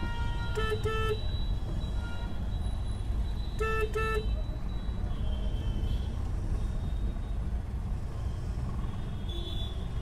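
Steady low road and engine rumble of a moving taxi, heard from inside the cabin, with a car horn giving two quick double toots, about a second in and again about four seconds in.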